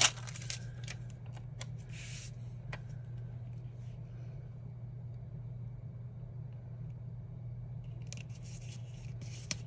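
Sticker being peeled off a crinkly translucent backing sheet: a sharp click, then rustling and crinkling for about two seconds. A steady low hum fills the quiet middle while the sticker is pressed onto the paper page, and light paper rustling and taps return near the end.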